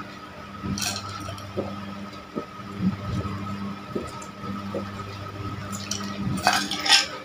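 A person gulping an iced drink from a glass, with small soft swallowing and liquid sounds and ice clinking against the glass; a louder clatter of glass and ice comes near the end.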